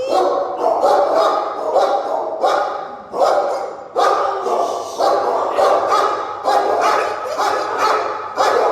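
Many shelter dogs barking over one another in a steady, overlapping chorus, the barks coming about once or twice a second and echoing off the kennel walls.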